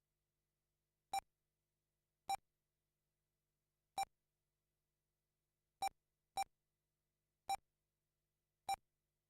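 Lap-timing system beeping as RC race cars cross the timing line: seven short, identical electronic beeps at uneven intervals, two of them close together about six seconds in.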